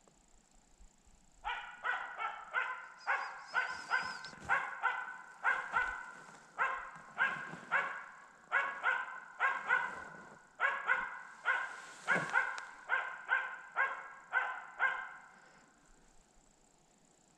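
Bird-hunting tree-barking dog giving a steady holding bark (ståndskall), about two barks a second, marking a capercaillie hen up in a tree. The barking starts about a second and a half in and stops shortly before the end.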